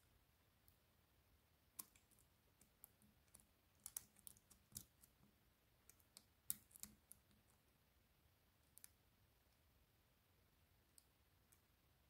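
Faint, irregular metallic clicks of a lock pick and tension wrench working the pins inside a BKS Kurzzylinder five-pin cylinder, while the spool pins are being set. The clicks cluster about two to seven seconds in, with a few more near the end.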